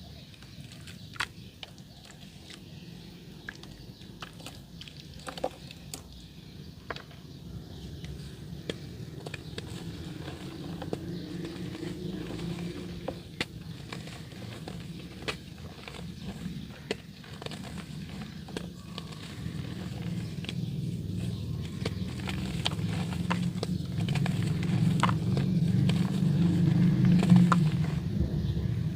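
Soft dirt crumbling in water: a steady low crackle scattered with small clicks, growing louder over the second half.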